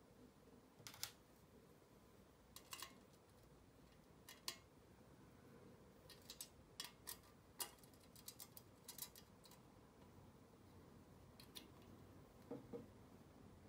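Light metal clicks and clinks from small aluminium weather-vane parts and screw hardware being handled and fitted together, coming irregularly, with a quick cluster of them around the middle.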